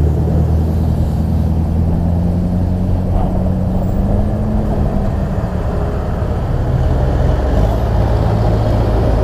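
Low, steady motor-vehicle engine drone on the road, with road noise. Its pitch rises slightly, then drops in steps about halfway through and again near the end as the vehicle eases off.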